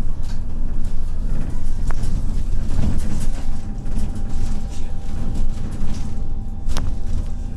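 Inside the cabin of a MAZ-215 articulated city bus under way: a steady low rumble of engine and road noise, with a sharp knock about two seconds in and a louder one near the end.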